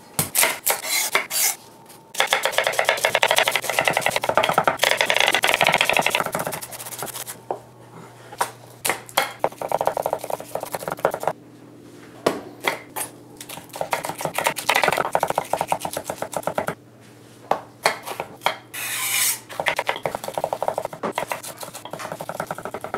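Chef's knife chopping onion and jalapeño on a wooden cutting board: runs of quick, sharp knife taps against the board, with denser scraping stretches and short pauses between the runs.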